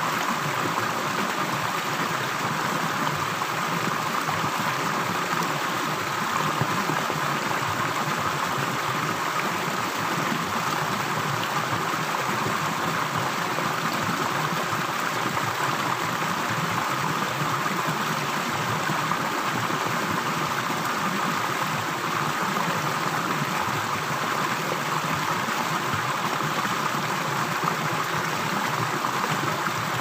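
Rocky stream flowing steadily over a small cascade between boulders and splashing into a pool, with an even, unbroken rush of water.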